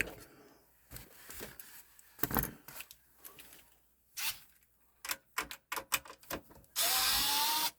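Clicks, ticks and light knocks of a screwdriver and screws working on a computer's metal case and parts as it is taken apart. Near the end comes a louder harsh noise about a second long with a faint rising whine.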